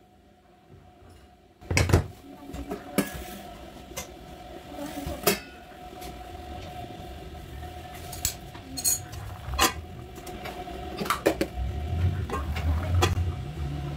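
Dishes and pots clattering as a kitchen counter is cleared and cleaned: a string of sharp knocks and clinks starting about two seconds in, with a low rumble building near the end.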